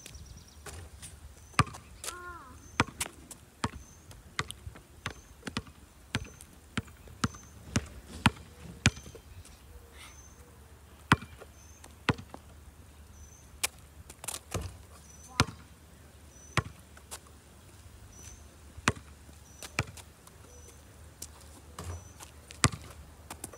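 Basketball bouncing on pavement and banging off the backboard and rim of a portable hoop: sharp, irregular thuds, some a second or so apart, some in quick runs. A faint high chirp repeats about once a second behind them.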